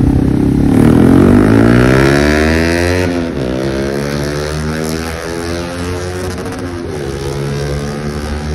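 Yamaha R15 V3 with an aftermarket Akrapovic exhaust, its 155 cc single-cylinder engine accelerating hard past and away. The pitch climbs, drops at a gear change about three seconds in, climbs again, and breaks at another shift near seven seconds. The sound is loudest about a second in and then fades as the bike pulls away.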